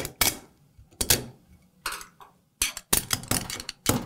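Snap ring being pressed into its groove in a TH400 clutch drum with a pick: a run of irregular metallic clicks and clinks as the ring seats.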